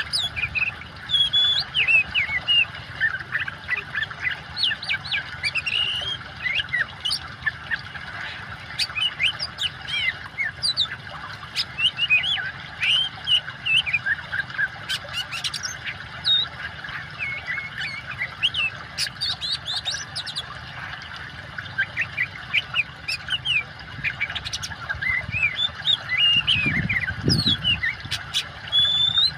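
Oriental magpie-robin (kacer) singing continuously: a fast, varied stream of sharp chirps and whistled slurs, over a steady running-water hiss. Near the end a brief low rumble.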